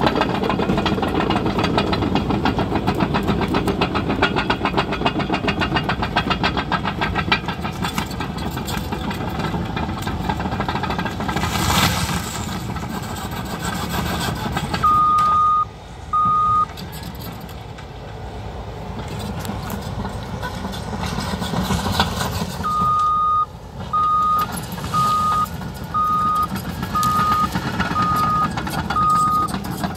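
Caterpillar crawler bulldozer's diesel engine running, with its reverse alarm beeping: two beeps about halfway through, then a regular series of seven beeps, about one a second, near the end.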